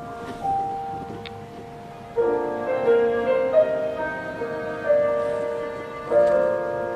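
Soft background piano music, sparse single notes at first, then fuller chords from about two seconds in.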